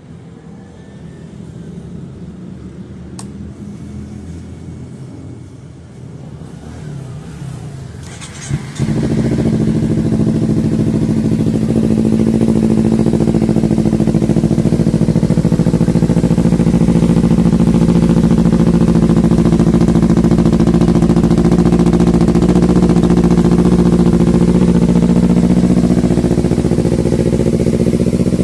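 Kawasaki Z250 parallel-twin engine running through a Leovince GP Corsa Carbon short slip-on exhaust. It runs fairly quietly at first, then about nine seconds in becomes abruptly much louder and holds a steady, loud exhaust note.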